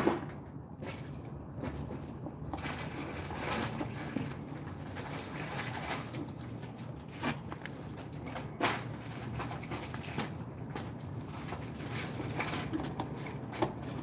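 Scattered light clicks and taps of hands working wires at the terminal blocks of an elevator control cabinet, over a steady low hum; one sharper click about eight and a half seconds in.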